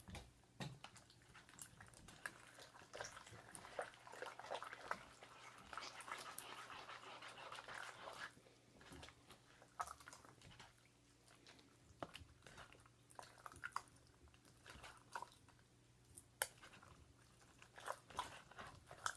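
Faint sticky squelching and clicking of clear-glue slime being worked with freshly added activator, still too sticky and not fully set. The sounds are busier in the first half, then thin out to scattered clicks.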